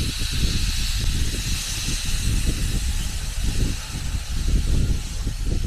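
Baldwin narrow-gauge steam locomotive hissing steadily as it vents steam, over a low, uneven rumble.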